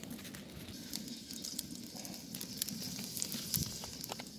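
Fire burning in a mangal under a cast-iron kazan, with steady hissing and frequent small crackles.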